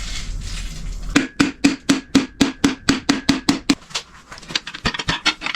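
An aerosol can of PB Blaster penetrating oil hissing for about a second, then a fast run of hammer strikes, about six a second, on a piston and rod in the seized engine block, going over to lighter, uneven taps.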